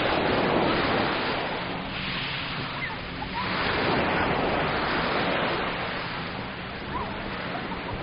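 Mediterranean surf washing onto a sandy beach, swelling twice, at the start and again about four seconds in.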